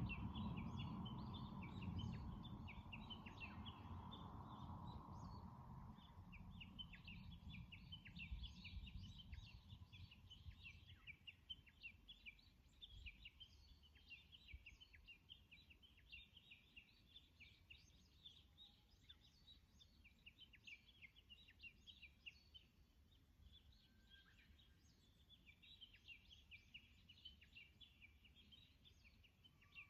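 Small birds singing continuously in a dense stream of short, high chirps and trills. A low rumble fades out over the first ten seconds or so.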